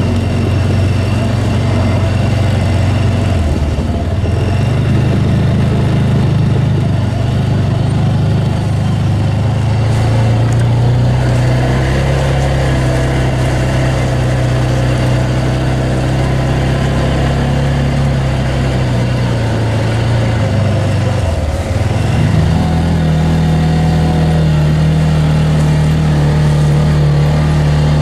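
Arctic Cat side-by-side UTV's engine running as it drives along, a steady drone that dips briefly about three-quarters of the way through and then settles at a higher pitch.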